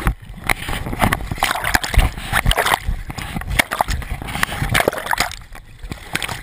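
River water sloshing and splashing right against a camera held at the surface, with many sharp slaps and knocks of water on the housing, easing off somewhat near the end.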